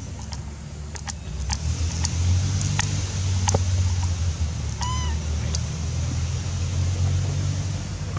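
A steady low rumble with a faint high hiss and a few light clicks. About five seconds in comes a single short call that rises and falls, likely from a young macaque.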